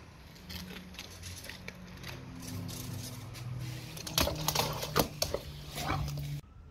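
A dog's claws clicking and tapping on stone floor tiles as it paws at and steps around a raw salmon head, the taps loudest and densest about four to five seconds in.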